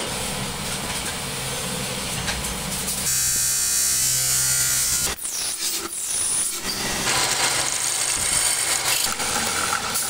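A workshop machine's electric motor running with a steady hum. About three seconds in it gets louder and adds a high hiss, as if working material. It drops away briefly near the five-second mark and picks up again a couple of seconds later.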